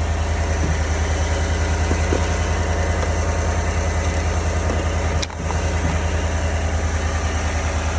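GMC Yukon engine idling steadily after a jump start, still running on its own with the jump pack being disconnected, a sign the alternator is charging. A brief break interrupts the hum about five seconds in.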